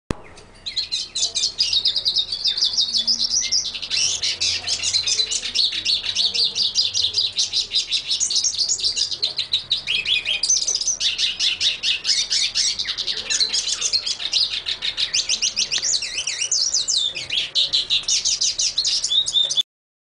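Caged songbirds singing in a dense, rapid, high-pitched twittering of chirps and trills. The song breaks off briefly about halfway, then resumes, and cuts off suddenly just before the end.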